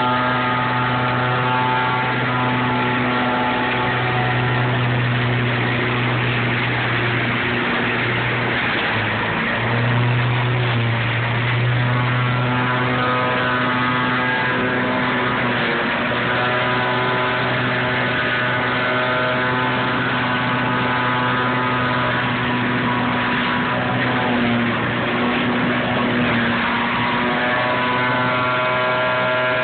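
Trailer-mounted leaf vacuum running: its gas engine and fan hum steadily, with a loud rush of air and dry leaves being sucked up through the wide intake hose.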